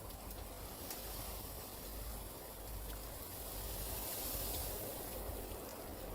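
Steady hissing noise over a low rumble, swelling slightly about four seconds in.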